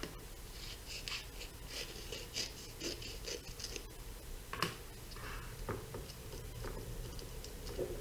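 Handling noise from working aluminium tape onto the inside of a Lexan RC body shell: a quick run of short, high, scratchy strokes in the first half, then scattered taps and rustles.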